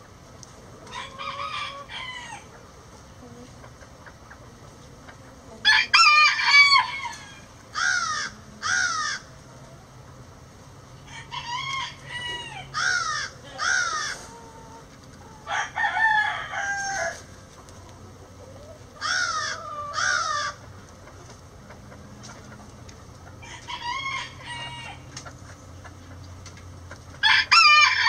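Several roosters crowing one after another, about eight crows, some close and loud, others fainter and farther off, the loudest about six seconds in and at the very end.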